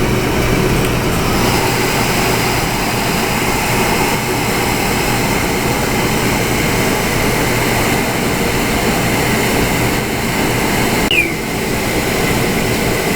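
Oil burner on a water heater running steadily, its motor, fan and fuel pump going while the pump pushes oil out of the opened bleed valve to purge air from the oil line. There is a short squeak about eleven seconds in.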